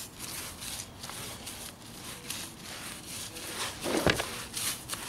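A paintbrush scrubbing wet Portland cement slurry onto concrete steps in quick repeated strokes, with one louder stroke about four seconds in.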